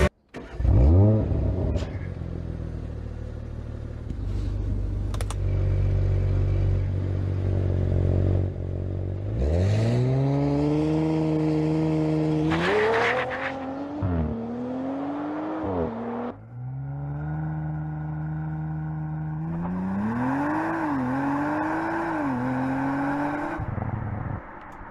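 Audi RS5's 2.9-litre twin-turbo V6 flares briefly about a second in, then runs steadily. It then accelerates hard twice, its pitch climbing and dropping back at each upshift.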